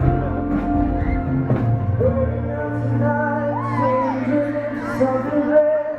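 Live pop band playing with amplified instruments, a male voice singing a melody over it from about two seconds in.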